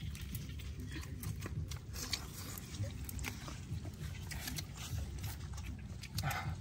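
Eating sounds of roasted pork leg being bitten and chewed, with many short wet mouth clicks. About six seconds in there is a brief breathy noise as the hot meat is blown on.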